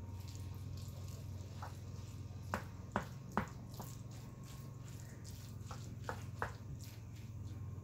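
Wooden spoon stirring ring macaroni through a thick cheese-and-tomato cream sauce in a skillet, with soft wet squishing and about six sharp knocks of the spoon against the pan in two groups of three. A steady low hum runs underneath.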